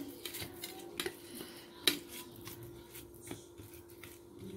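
Hands kneading and pressing soft mashed potato and paneer dough on a stainless steel plate: faint rubbing with a few light taps and clicks against the steel, the sharpest a little under two seconds in. A steady low hum runs underneath.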